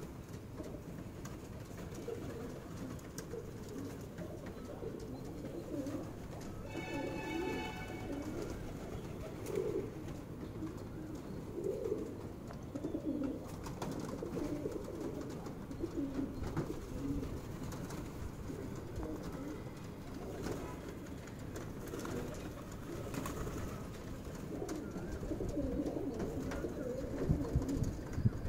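A flock of feral rock pigeons cooing continuously in a low, burbling chorus. About seven seconds in a brief pitched tone with many overtones sounds over it, and a few low thumps come near the end.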